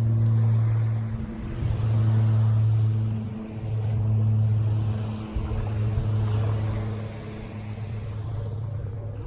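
A steady low motor drone that swells and fades every second or two, over a haze of surf noise.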